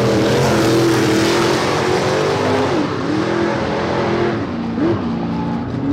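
Race car engine running loudly at the drag strip, its pitch holding steady and dipping briefly and coming back up twice.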